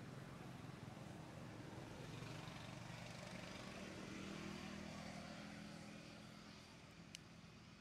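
Faint engine hum of a distant passing motor vehicle, swelling about halfway through and fading toward the end, with a single sharp click near the end.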